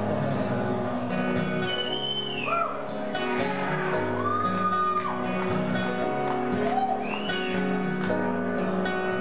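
Live band playing an instrumental passage: steady guitar chords under a melodic lead line of held notes that slide up and down between pitches.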